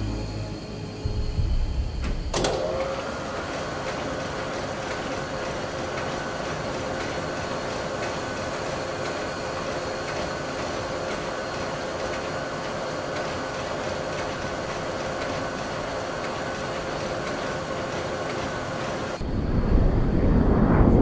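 Animation sound effects of a machine: a sharp clunk about two seconds in, then a steady mechanical hum with a held tone as the missile rack in the launch container rises. Near the end a loud low rumble builds into a rising whoosh.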